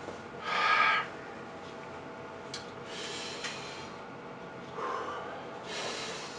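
A man breathing out hard through his open mouth to cool a mouth burning from extremely hot sauce: four heavy, wordless breaths. The first, about half a second in, is the loudest.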